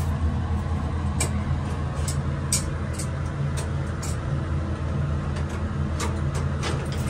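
Elevator car travelling in the hoistway, heard from inside the cab: a steady low hum with several light clicks and rattles scattered through it.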